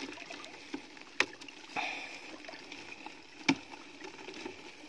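Wet weeds, stems and mud rustling and squelching as gloved hands rummage through a plastic basket, with two sharp clicks or knocks, a little after one second in and, louder, past three seconds.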